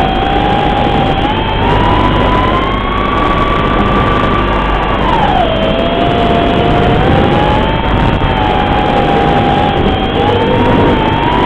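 Racing quadcopter's Cobra 2204 2300kv motors spinning DALprop 5040 three-blade props, a loud whine that follows the throttle. It rises in pitch over the first few seconds, drops sharply about five seconds in, then wavers and climbs again near the end.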